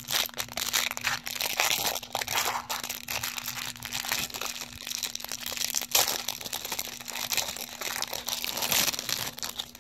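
Clear plastic wrapper of a Topps baseball card rack pack crinkling and tearing as fingers peel it off the stack of cards, a continuous crackle of small snaps. A faint steady hum sits underneath.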